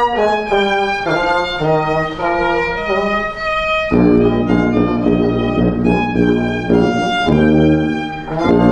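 Instrumental music with a violin carrying the melody; deeper, lower notes join in about four seconds in.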